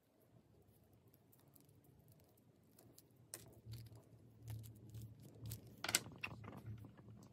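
Faint handling noise as hands pick up and move a coiled sat-nav power cable and its box: soft rustles with scattered light clicks and taps, the sharpest about six seconds in.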